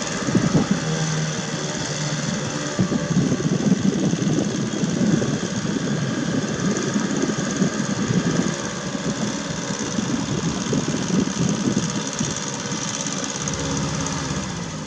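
A small 4 HP engine driving an air propeller on an inflatable boat, running steadily; it drops off slightly near the end.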